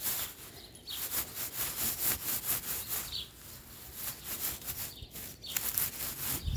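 Long grass rustling and brushing against the phone's microphone in an irregular crackle, with a couple of short bird chirps.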